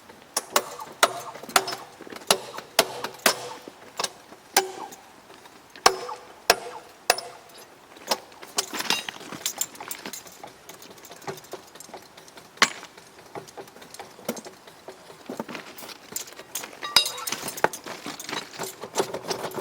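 Irregular metallic clinks and knocks of hand tools striking and handling steel, some ringing briefly, coming in clusters.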